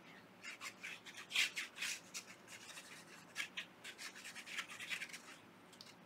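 Nozzle of a plastic glue squeeze bottle rubbing and scratching across paper as a line of liquid glue is laid onto an envelope flap: faint, irregular scratches.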